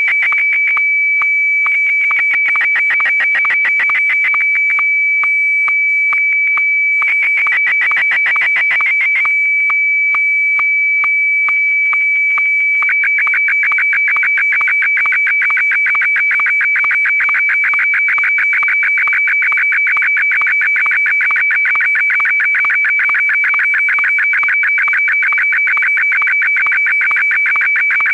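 Experimental electronic music: one steady high-pitched tone held throughout over a fast, dense stream of clicks and pulses. The clicks thin out and drop away in stretches during the first half, then run dense and unbroken from about halfway through.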